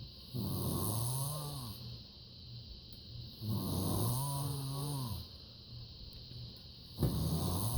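Someone snoring: three long snores with a low buzzing pitch, about three and a half seconds apart, the last one starting near the end.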